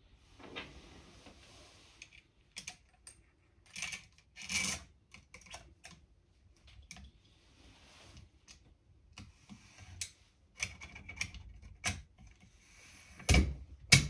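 Metal parts of an Air Arms TX200 air rifle being handled and fitted together by hand: a scattering of small clicks, taps and scrapes, with two louder knocks near the end.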